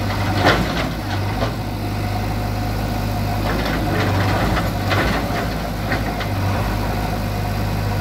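JCB 3DX backhoe loader's diesel engine running steadily as its backhoe arm knocks down a brick wall, with sharp knocks and clatters of falling bricks. The loudest knock comes about half a second in, and more follow around four to six seconds in.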